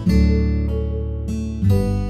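Background music: an acoustic guitar strumming chords, with one strum at the start and another near the end and lighter plucked notes between them.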